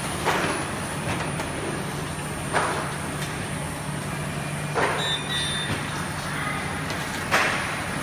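Tunnel baking oven production line running with a steady machine hum. A short burst of noise repeats about every two and a half seconds, four times.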